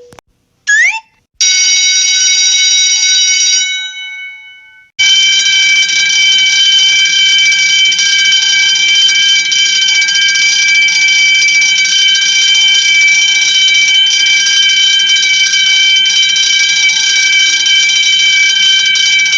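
Cartoon sound effects: a quick rising whistle, then a single bell ding that rings out and fades over about two seconds, then an alarm bell ringing steadily and loudly for about fourteen seconds.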